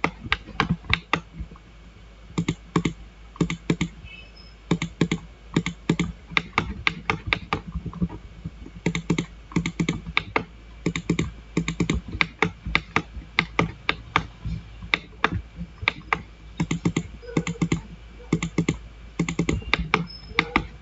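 Computer mouse and keyboard clicking in quick, irregular clusters while trimming lines in a CAD drawing.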